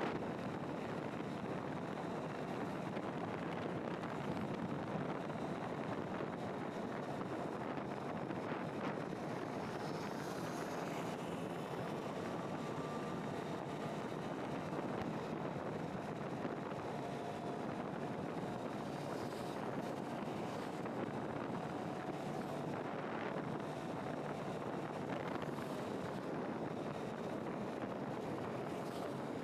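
Steady wind rushing over the microphone mixed with the road noise of a moving vehicle, unbroken throughout.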